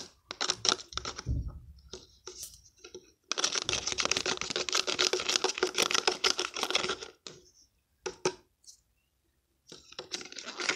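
A pen stirring a runny lotion-and-salt slime mixture in a small cup, clicking and tapping against the cup's sides. Scattered taps, then a few seconds of fast, continuous clicking in the middle, then a few more taps.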